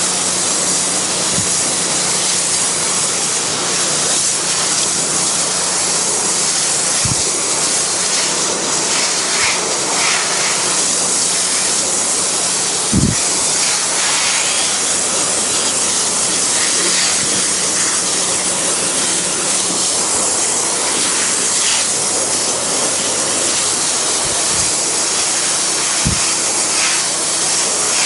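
Pressure washer spraying a steady low-pressure stream of water onto a wood deck, a continuous loud hiss of spray, with a faint steady hum underneath; this is the rinse after a bleach (sodium hypochlorite) wash. A couple of brief dull thumps, about 7 and 13 seconds in.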